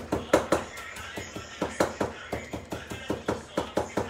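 Kitchen knife chopping tomato and parsley on a cutting board: quick, sharp strikes, about four a second.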